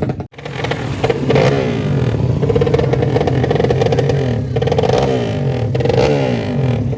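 Drag-racing motorcycle engine revved again and again, its pitch rising and falling over and over.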